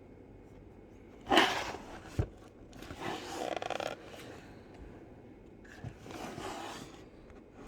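Packaging of a boxed model car being opened and handled: three scraping, rustling bursts, the first and loudest about a second in, with a short knock just after it.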